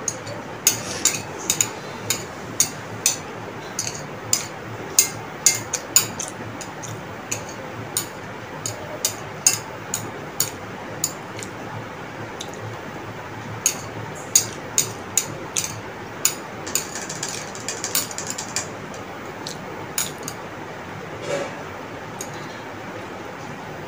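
Metal cutlery clinking and scraping on a ceramic plate while noodles are picked up: a string of sharp, irregular clicks, about one or two a second, coming thicker in the middle of the stretch.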